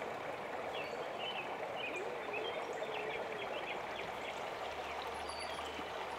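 Steady rushing noise of flowing water, with faint high chirps scattered through the first half.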